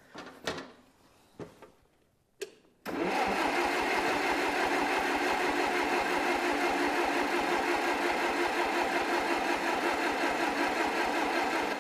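1969 Allis-Chalmers forklift's gasoline engine cranking on the starter for about nine seconds without catching, on a cold start with the choke on. A couple of light clicks come before the starter engages about three seconds in, and the cranking stops near the end.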